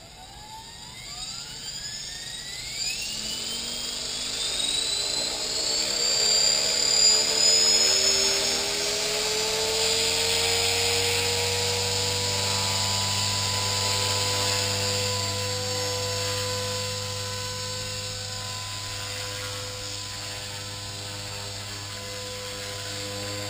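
Blade 450X electric RC helicopter spooling up: the brushless motor's whine rises steadily in pitch over the first eight or nine seconds. It then holds a steady high whine with a low rotor hum as the rotor reaches speed.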